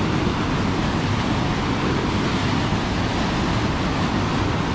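Mountain river rushing steadily below a trail crossing, a loud, even roar of running water.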